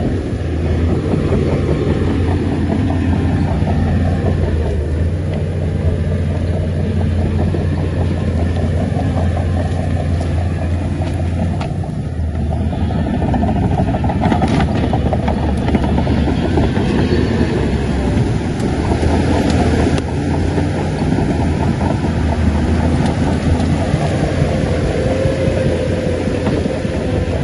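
Heavy diesel engine of a Shantui crawler bulldozer running steadily at working revs, with a dense mechanical clatter over a low drone.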